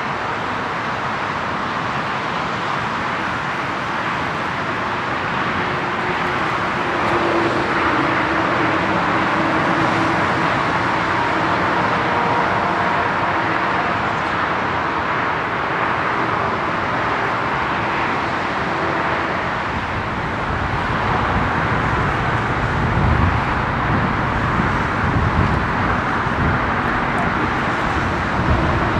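Steady road traffic noise, with a deeper rumble building from about two-thirds of the way in.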